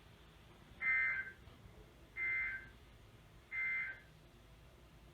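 NOAA Weather Radio SAME digital data bursts sent three times, each a short buzzy two-tone warble with about a second of quiet between them: the end-of-message code that closes a Required Weekly Test.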